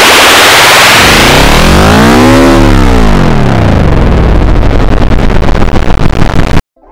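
Heavily distorted, clipped effects-processed audio: layered pitches slide and warble, a tone arches up and back down about two seconds in, then the sound breaks into rapid pulsing before cutting off abruptly near the end.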